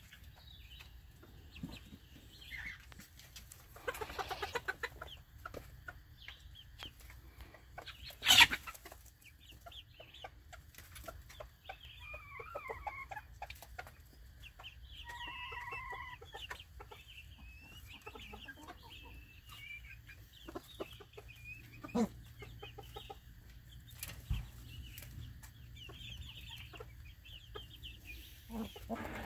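Backyard chickens clucking and calling, with many small ticks and scratches from the flock. One sharp knock about eight seconds in is the loudest sound.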